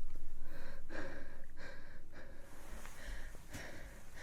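A person breathing audibly while eating, with a mouthful, fading off over a few seconds.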